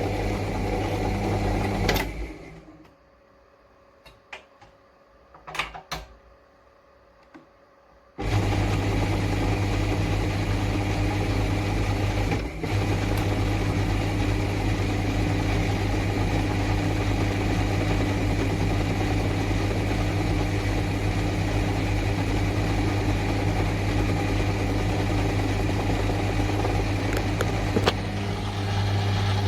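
Bench drill press's electric motor running with a steady hum. It stops about two seconds in, leaving a few faint clicks, then starts again abruptly about eight seconds in and keeps running.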